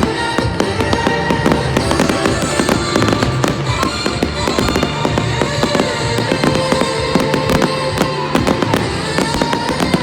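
Fireworks going off in a dense run of bangs and crackles, with music playing loudly over them.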